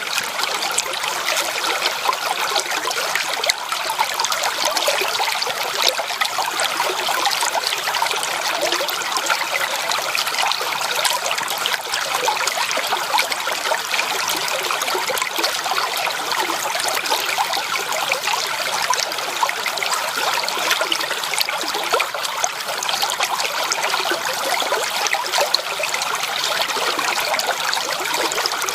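Shallow creek water trickling and babbling over stones, a steady bright splashing with many small flickering splashes and no pauses.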